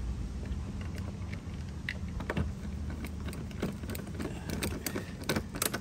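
Light clicks and taps of a screwdriver and mounting screws as a fog lamp is fitted into its plastic bumper bracket, with a few sharper clicks near the end. A steady low hum runs underneath.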